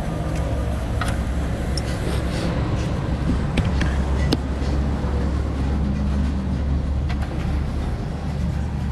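Truck engine running at a steady idle, a low even hum with a few sharp clicks over it.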